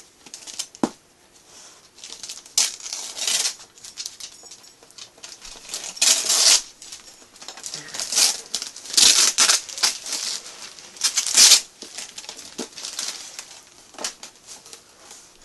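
Wrapping paper being torn off a boxed gift and crinkled by hand, in a run of short rips with rustling between.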